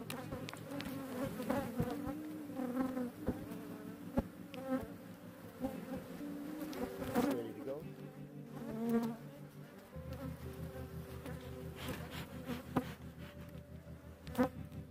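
Honey bees buzzing in numbers at a strong double-colony hive whose foragers are bringing in pollen. Single bees fly close past, their pitch rising and falling, and a few sharp clicks sound among them.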